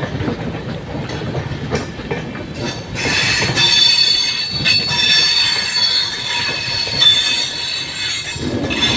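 Passenger train coaches running over the rails with a low rumble, then from about three seconds in a steady high-pitched wheel squeal that lasts until near the end.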